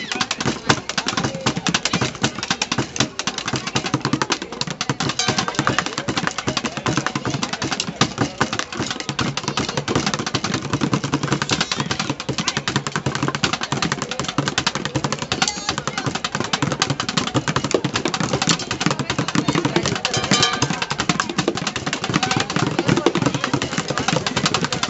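Street bucket drumming: fast, continuous hits on plastic buckets, many strokes a second.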